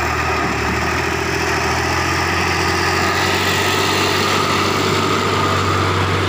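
Farm tractor's diesel engine running steadily under load as it pulls a trailer heaped with sand, a steady low engine note that shifts slightly about two seconds in.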